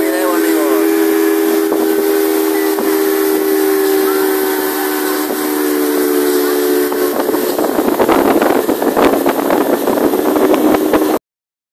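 Motorboat's outboard motor running steadily at speed: a held whine over the rush of wind and water. About seven seconds in the whine's pitch shifts and the wind and water noise grows louder, and the sound cuts off abruptly shortly before the end.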